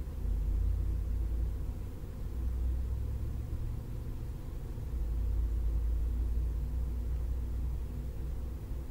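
Low rumble that swells and eases over several seconds, over a faint steady hiss.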